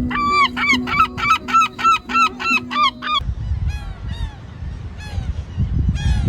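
Gull calling in a fast series of loud yelping calls, about three or four a second, for about three seconds. Fainter, falling gull calls follow after an abrupt change.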